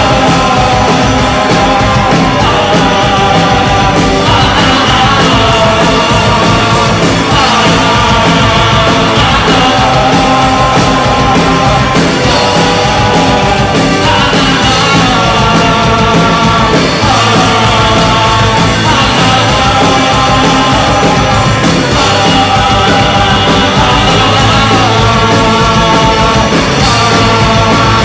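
Punk rock band playing live, loud and unbroken, with a voice singing over the band.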